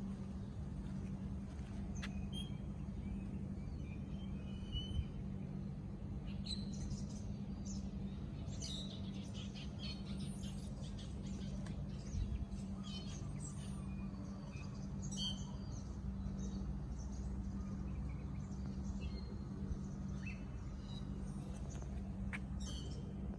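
Birds chirping and calling in short, scattered notes, busiest in the middle stretch, over a steady low hum.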